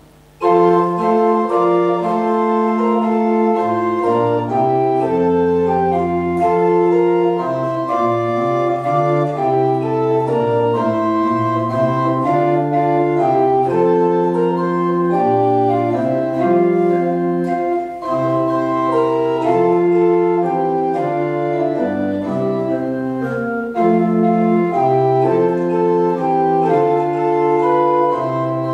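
Church pipe organ playing a slow chorale-style piece in sustained chords over a moving pedal bass, starting about half a second in.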